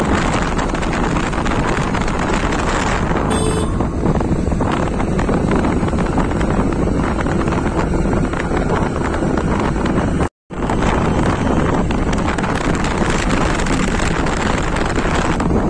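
Wind buffeting the phone's microphone on a moving motorbike, a steady rush with the bike's engine running underneath. The sound cuts out for a moment about ten seconds in.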